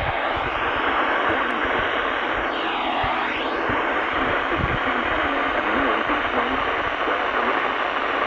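Steady hiss of static from a NOAA Weather Radio receiver on a weak signal, with a faint sweep dipping and rising again in the middle: the station is not being received well.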